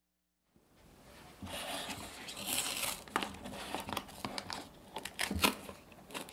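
A paper carton of heavy cream being opened by hand: the carton crinkles and tears as its spout is pulled open, with several sharp snaps, the loudest about five seconds in.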